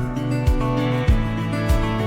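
Instrumental break in a country song: guitar with a steady drum beat between sung lines.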